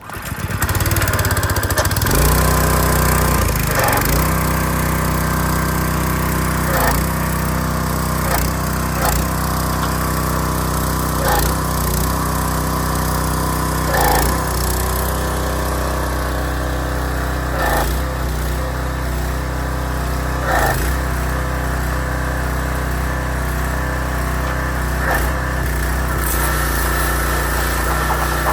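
Pressure washer's small petrol engine starting up and running steadily, reaching full speed about two seconds in. Its note dips briefly every few seconds.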